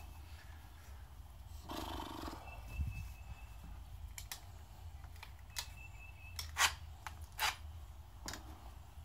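Knocks and clatter of tools and objects being picked up and set down on a workbench, a handful of sharp hits in the second half, the loudest two about two-thirds of the way through, over a low steady rumble.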